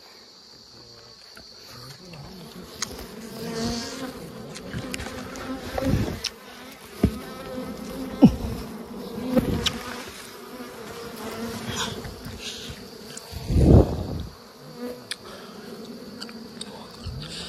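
Wild honeybees swarming, a steady droning buzz, with several sharp knocks close by, the loudest about 14 seconds in.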